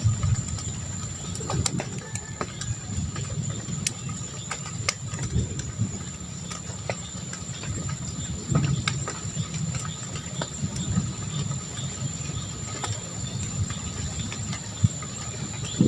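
Outdoor nature ambience: a steady low rumble with a thin, continuous high-pitched tone above it and scattered short clicks and chirps.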